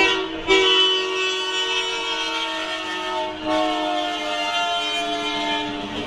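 Canadian Pacific diesel locomotive's air horn sounding a chord for a grade crossing. It comes as a short blast, then a long one, then after a brief break about three and a half seconds in, another long blast as the train reaches the crossing.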